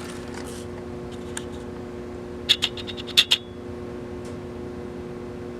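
A steady low electrical hum, with a quick run of about ten sharp clicks lasting under a second about two and a half seconds in.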